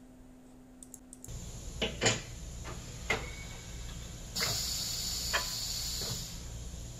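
Several sharp clicks and knocks from the Morgan Press injection molder and its control knobs, over a low steady hum. About four and a half seconds in, a hiss of air runs for nearly two seconds.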